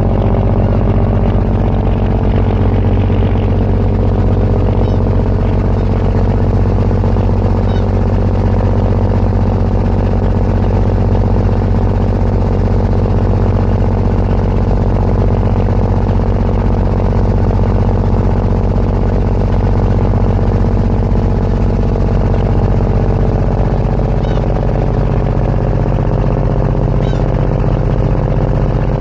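Ferry's engine running steadily with a deep, even drone; one of the low tones fades about 24 seconds in.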